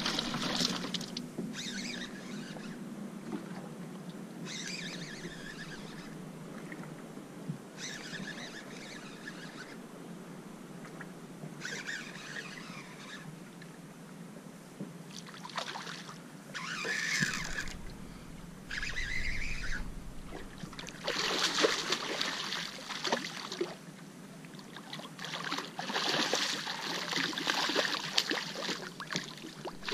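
Fishing reel working in short spells a few seconds apart while a hooked striped bass is fought on the line. In the last few seconds the bass thrashes and splashes at the surface.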